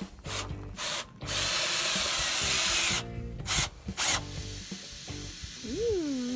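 Power drill boring a hole in the bottom of a barrel, run in several short bursts and one steady run of nearly two seconds.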